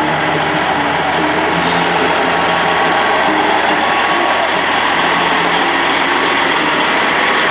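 Semi-truck's diesel engine running steadily at low speed as it tows a flatbed trailer past.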